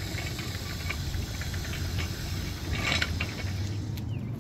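Steady low rumble of a motor vehicle engine running nearby, with a few scuffs of footsteps on pavement, the loudest about three seconds in.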